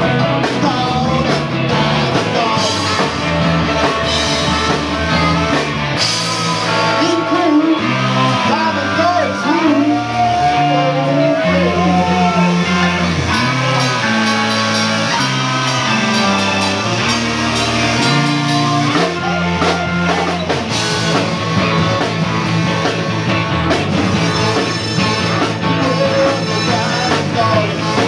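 Live rock band playing loud: a man singing lead over electric guitars, bass guitar and a drum kit.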